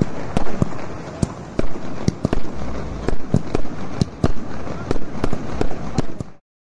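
Fireworks going off overhead in a rapid, irregular string of sharp bangs, about three a second. The sound cuts off abruptly near the end.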